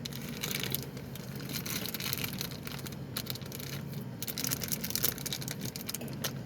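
Plastic toy packaging bag crinkling and rustling as it is handled and pulled at to get it open, an irregular run of crackles throughout.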